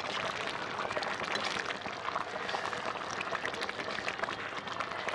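Chicken curry bubbling and sizzling in the pan, a steady stream of many small pops.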